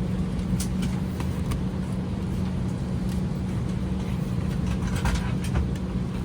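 Steady hum of an Airbus A320 airliner cabin at the gate during boarding, with scattered light clicks and knocks.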